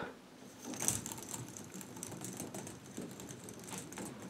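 A plastic K'NEX ball rolling around a spiral of orange K'NEX tubing, a fast, light rattle of small plastic clicks starting about a second in.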